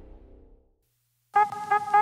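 Intro music fading out, a brief moment of silence, then background music starting suddenly about one and a half seconds in: a held horn-like note with rhythmic accents.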